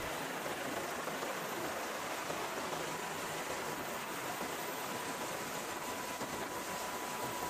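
Steady, even hiss of noise with no distinct events.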